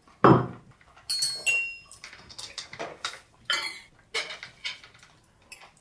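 Metal cutlery clattering and clinking against dishes in a series of separate knocks. The loudest, just after the start, is a heavy knock with a low thud, and about a second in a clink rings on briefly.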